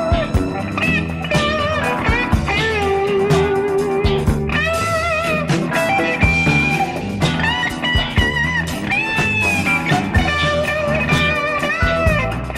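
Rock band recording with a lead electric guitar solo, its notes bending and wavering in pitch, over bass and drums.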